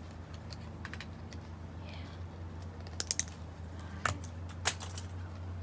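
A few sharp clicks and taps over a steady low hum: three in quick succession about three seconds in, then two more single ones.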